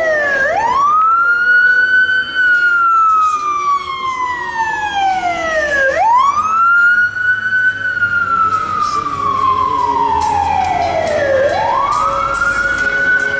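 Police car siren on wail, from a Ford Crown Victoria Police Interceptor: the pitch rises quickly, then glides slowly down over about five seconds, in slow repeating sweeps.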